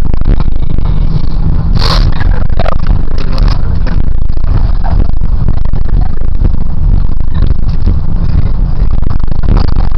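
School bus running, a steady low rumble heard from inside the cabin, with scattered knocks and rattles.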